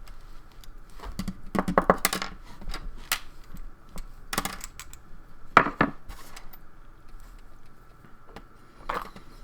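Light metallic clinks and clatters of a padlock and small tools being handled while the lock is taken apart, in scattered single knocks and short clusters.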